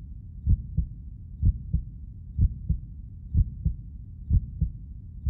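Heartbeat sound effect: a deep double thump, lub-dub, repeating about once a second, five beats in all.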